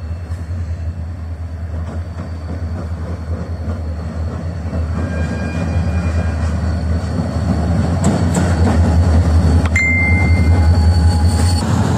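A train approaching, its low rumble growing steadily louder, with faint high-pitched squeals and a couple of sharp metallic clinks near the end.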